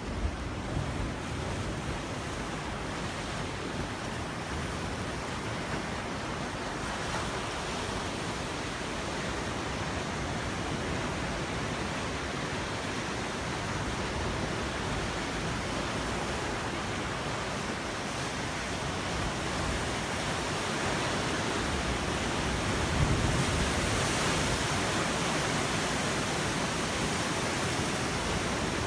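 Ocean surf breaking on a beach, a steady wash of noise that swells louder about 23 seconds in.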